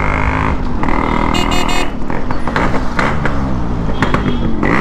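Yamaha RX100's two-stroke single-cylinder engine running as the bike is ridden, its pitch rising and falling several times with throttle and gear changes. A short high beep sounds about a second and a half in.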